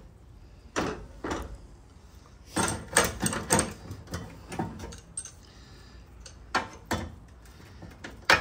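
Irregular light metal clinks and knocks, about a dozen, spread unevenly, some close together in the middle: sheet metal and hand tools being handled as the upper core support, its spot welds drilled out, is worked loose from the car's front end.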